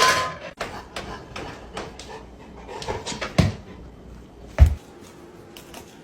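A dog panting and whimpering, with light clicks throughout and two dull thumps, the louder one about four and a half seconds in.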